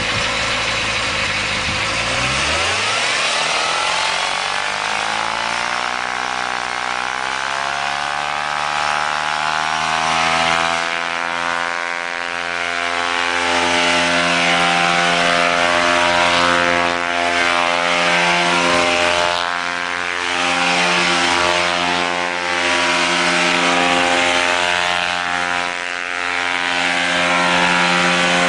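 Small aircraft engine driving a propeller, speeding up steadily over the first ten seconds, then running at high revs with its pitch dipping briefly now and then.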